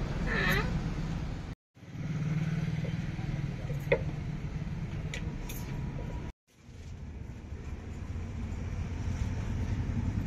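Steady low background rumble, broken twice by short dead silences, with a single sharp click about four seconds in.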